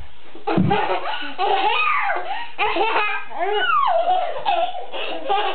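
Baby laughing in repeated high-pitched bursts of giggles that start about half a second in, with an adult laughing along.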